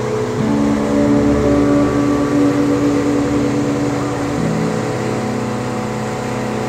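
A 30 ft boat's engine running under way, a steady pitched drone whose tone shifts twice.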